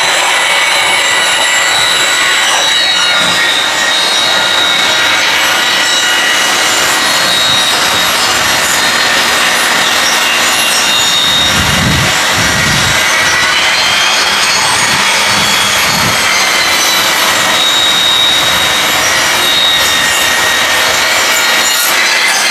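Table saw ripping a board lengthwise: the blade and motor run with a steady whine as the wood is fed through, with a few low knocks about halfway.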